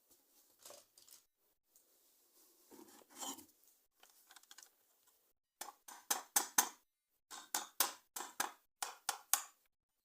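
Scissors cutting plastic toy packaging: soft rustling and scraping, then a run of about a dozen crisp snips in three quick groups.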